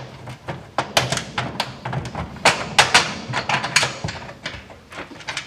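Bolts and washers clicking and tapping as they are handled and fitted into bolt holes: a run of irregular sharp metal clicks and light knocks.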